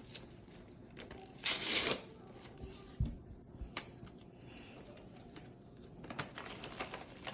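Cardboard and snack packaging being handled and rustled as a snack box is unpacked by hand, with a louder half-second rustle about one and a half seconds in and a dull thud about three seconds in.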